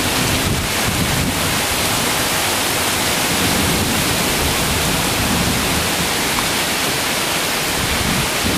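Heavy rain pouring down in a steady, loud hiss, a summer downpour heavy enough to flood the yard.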